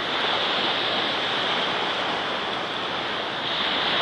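Small surf waves breaking and washing up onto a sandy beach, a steady hiss of moving water.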